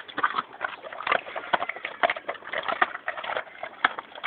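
English Mastiffs crunching chicken carcasses, the bones cracking in quick, irregular snaps amid wet chewing.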